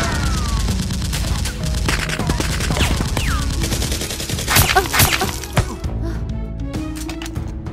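Rapid dubbed-in gunfire sound effects with falling whistles, and two loud shots about five seconds in, over background music. The gunfire stops near the end and the music carries on alone.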